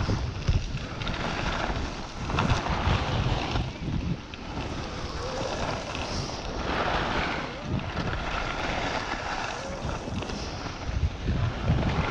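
Wind buffeting the microphone: a continuous rushing noise with gusty low rumbles.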